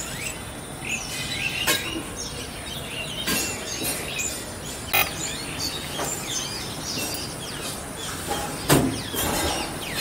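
Small birds chirping repeatedly, with a few short clinks of a steel ladle against a steel bowl as curry is served.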